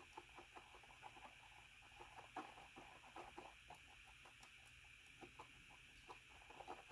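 Faint, irregular little clicks and scrapes of a wooden stir stick mixing two-part epoxy on a plastic lid, several a second.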